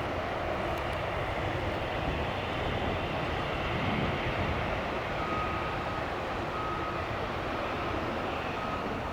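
Jet aircraft engines running at a distance: a steady, even rumble with no rise or fall. About halfway through, a faint high-pitched beep comes in several short dashes.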